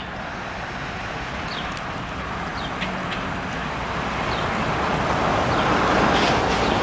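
Diesel multiple unit approaching on the track, its engine and running noise growing steadily louder. A few short, high bird chirps over it.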